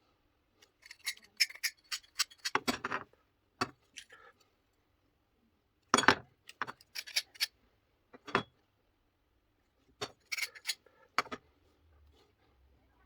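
Metal parts and tools being handled on a workbench, clinking and knocking in short clusters: a run of clinks in the first three seconds, sharper knocks about six and eight seconds in, and another run of clinks a little after ten seconds.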